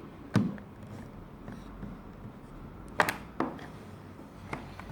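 A few sharp clicks and knocks from the keyboard's plastic case being handled: one shortly after the start, a quick group of three around the middle, and a fainter one near the end.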